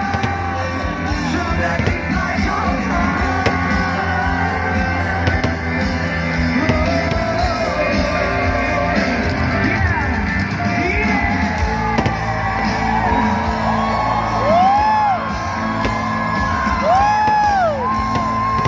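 Loud rock music with singing, and voices yelling over it, with two short arching whistle-like tones near the end.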